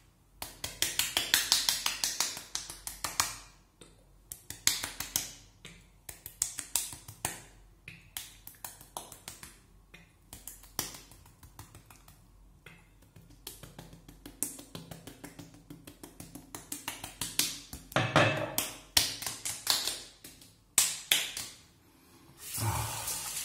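Hands patting and slapping aftershave onto a freshly shaved face: quick runs of light slaps, several a second, broken by short pauses.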